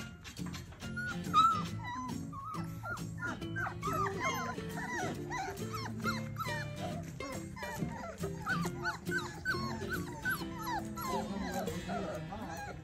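A litter of four-week-old standard Bernedoodle puppies whining and yipping, many short high cries a second overlapping each other, over background music.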